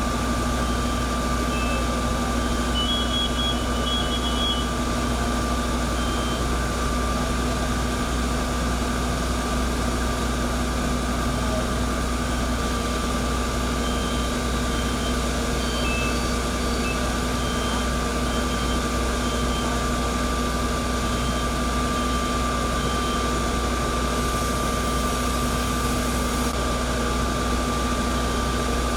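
Fire engine running steadily at a fire scene, a constant drone with a steady whine over a low hum. Faint short high beeps come and go.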